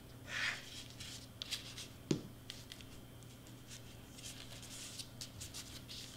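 Faint rustling and rubbing of hands pressing crepe paper down onto foam board, with one sharp knock about two seconds in as the glue bottle is set down on the cutting mat. A low steady hum runs underneath.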